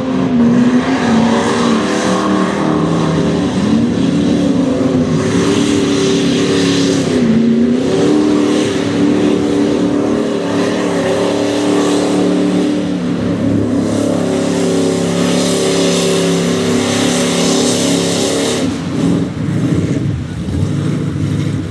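Mud bog truck engines revving hard at high revs, the pitch dipping and climbing again a few times as the trucks power through the mud pit.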